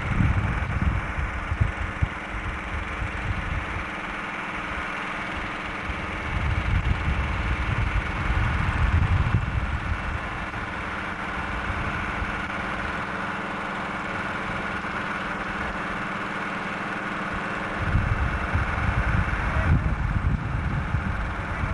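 An engine running steadily, with low rumbling gusts of wind on the microphone coming and going.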